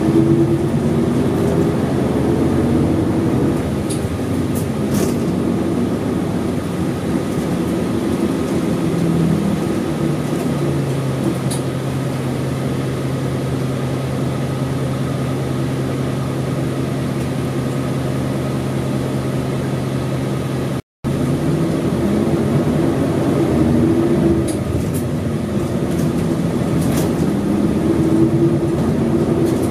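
Isuzu Erga city bus's V8 diesel engine running as the bus drives, heard from on board. The engine note rises and falls with acceleration and gear changes, holds a steady drone for about ten seconds in the middle, and drops out for an instant about two-thirds through before pulling up through the revs again.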